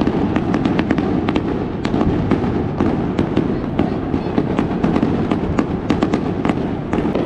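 Fireworks going off in quick succession: many sharp cracks and pops, several a second, over a dense low rumble.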